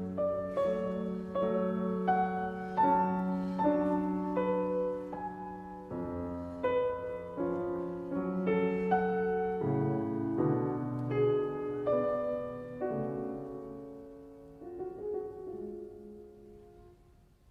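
Background piano music playing a slow, quiet melody over held low notes, fading out near the end.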